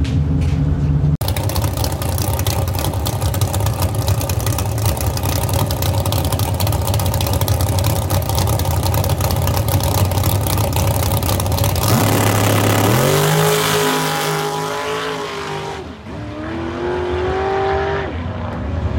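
598-cubic-inch big-block V8 of a tube-chassis drag-racing Camaro running loud and steady at the starting line, then launching: the revs climb, drop once as the Powerglide shifts into high gear, climb again, and fade as the car pulls away down the track.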